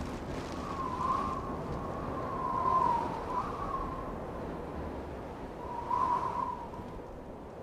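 A thin whistling tone held near one pitch, wavering and swelling a few times over a soft hiss, then fading near the end.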